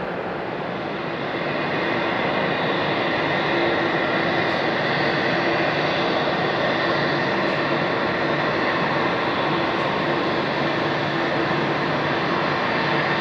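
Jet airliner engines running with a steady whine and rumble on the airport apron and taxiway. The sound grows louder about a second and a half in, then holds steady.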